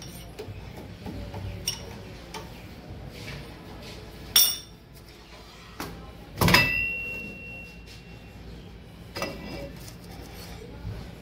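Metal tools clinking and knocking against the steel of a crankshaft grinding machine, a few separate strikes over a low steady hum. The loudest knock, about six and a half seconds in, leaves a short high ringing tone.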